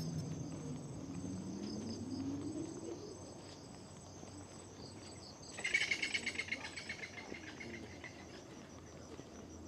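Jungle insects chirring steadily in high tones. A louder, rapidly pulsing insect call sets in suddenly a little past halfway and fades out over about two seconds. A faint low sound rises in pitch over the first three seconds.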